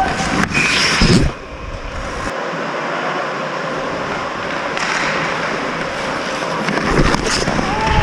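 Ice hockey play: skate blades scraping and carving on the ice with a steady hiss, with a few sharp clatters about a second in and again near the end.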